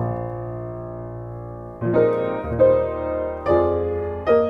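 Upright piano playing a jazz chord progression. A chord is held and rings for about two seconds, then further chords are struck about once a second, each left to ring.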